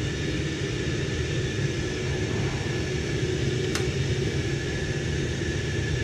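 Steady hum and rumble of a hydronic snowmelt heating system running: Munchkin gas boilers firing and the circulator pumps turning, with a faint steady whine over it. One light click about halfway through.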